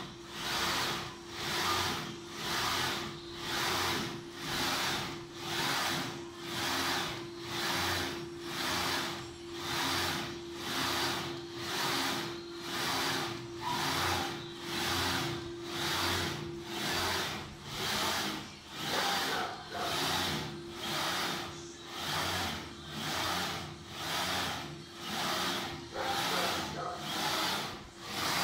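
Servo-driven pick-and-place gantry running on high-speed ball screws, the head shuttling back and forth about once a second, each move a rushing whir that swells and fades. A steady hum runs underneath and drops out for a few seconds past the middle.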